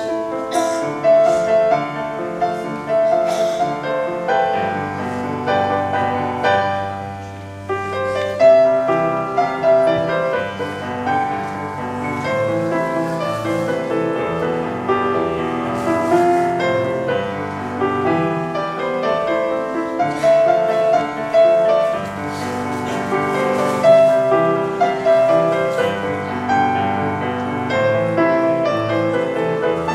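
Grand piano played solo: a melody over a running accompaniment, with held bass notes in places and some louder accented chords.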